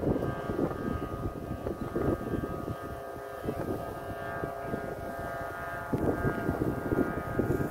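Several steady whistling tones held at fixed pitches, typical of flutes on kites humming in the wind, under gusts of wind buffeting the microphone.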